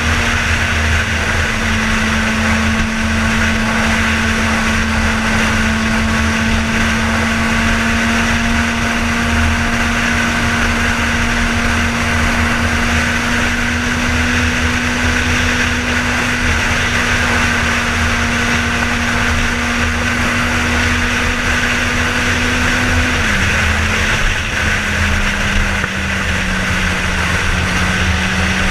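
Suzuki GSX-R1000's inline-four engine running at a steady speed while the bike cruises, with steady wind noise over the helmet microphone. Near the end the engine note drops slightly and holds lower.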